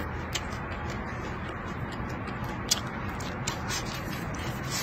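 A person eating with chopsticks from a bowl of stir-fried meat and rice: chewing, with a few sharp clicks, the loudest a little past the middle, over a steady background hiss.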